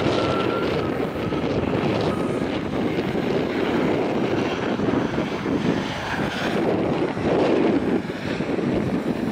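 Boeing 737-800's CFM56-7B turbofan engines running as the jet rolls along the runway: a steady, broad rushing noise, with a faint high whine near the start.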